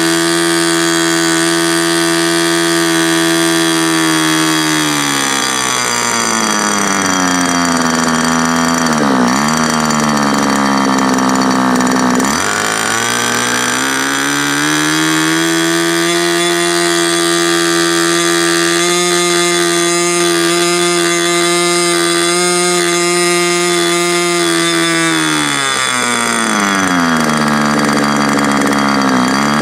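OS 61SF ringed two-stroke glow engine turning a 12x6 propeller, running loud and steady at high speed, then throttled back, with two quick dips in pitch. It climbs back up to full speed, holds there for several seconds, and is throttled down again near the end. The low-speed mixture is a little on the rich side.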